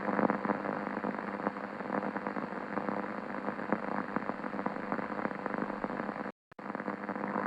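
Electrical static crackle: a dense run of fine crackling over a steady hum. It cuts off for a moment near the end, and another, louder crackle begins.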